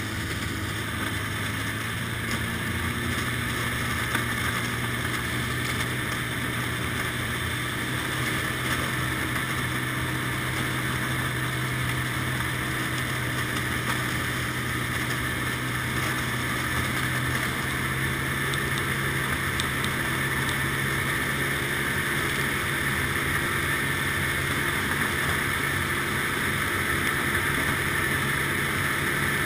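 Ski-Doo snowmobile engine running steadily at an even cruising speed, heard from on board the moving sled.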